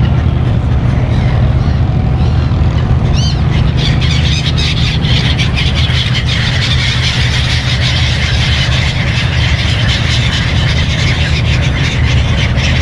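A steady low engine hum, with a short gull call about three seconds in.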